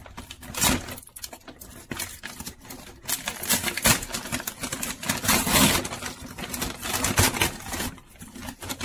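Brown paper takeaway bag crinkling and rustling in irregular bursts as hands pull its folded handles apart to open it, the paper loudest about halfway through.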